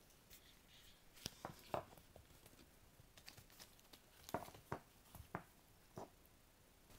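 Japanese Spitz puppy gnawing at the wire bars of its pen: faint, scattered clicks and rattles of teeth on metal wire, in two short flurries.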